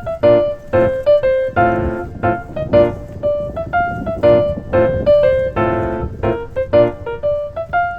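Background music: a bright, rhythmic piano tune with regular chords.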